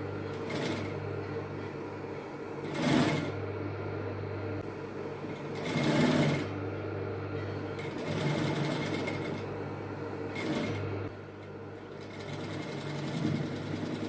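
Industrial sewing machine stitching in several short runs, a few seconds apart, with a steady motor hum between them.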